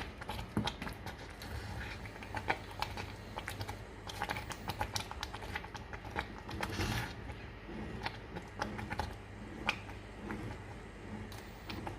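Spoon stirring a pan of curry with coconut milk, clicking and scraping against the pan in irregular light taps.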